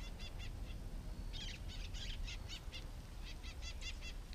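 A bird giving runs of short, high chirps in quick succession, three runs in all, over a low rumble of wind on the microphone.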